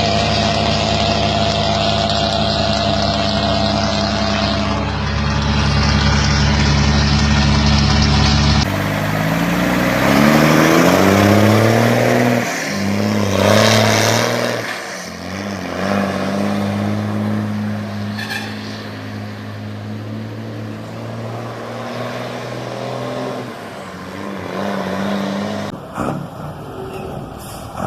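Mercedes-Benz diesel truck engines, in several spliced clips. The engine runs steadily, then after a cut revs up with a rising pitch about nine seconds in and settles into a steady run at a higher note, and a further cut comes near the end.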